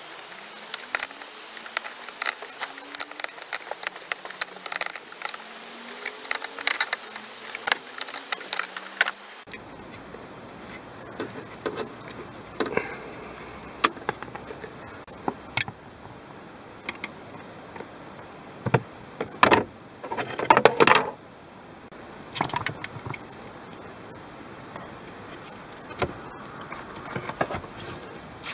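Small metal hand tools clicking, rattling and scraping against the plastic cabin-filter housing and dashboard trim, in many short irregular clicks. A few louder scrapes come about two-thirds of the way through.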